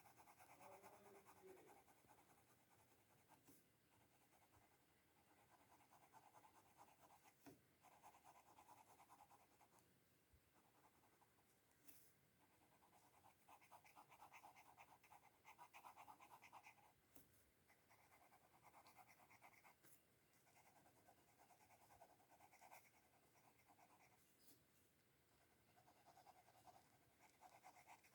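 Faint pencil strokes scratching on paper while shading a sketch, in spurts of quick back-and-forth strokes a second or two long with short pauses between.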